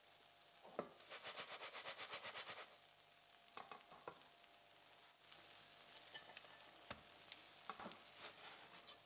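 Batter pancake frying in a nonstick pan: a soft steady sizzle, with a stretch of fast crackling about a second in. A few light knocks, the last ones near the end as a ceramic plate is set down over the pan.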